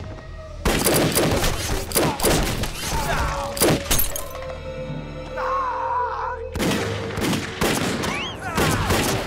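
Action-film gunfire: rapid shots and bullets striking metal, with a few ricochet-like whines, over dramatic background music.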